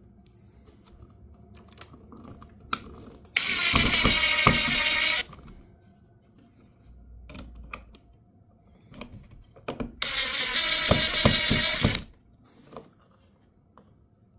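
Cordless hydraulic impact driver running in two bursts of about two seconds each, driving the mounting screws of a toggle light switch into a plastic electrical box.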